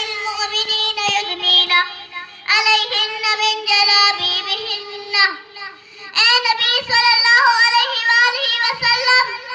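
A young girl's voice reciting verses in a sung, chanting style, with long held notes, in three phrases with short breaks between.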